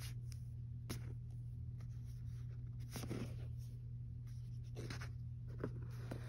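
Coloring book pages being handled and turned: a few short paper rustles and slides, about four in all, over a steady low hum.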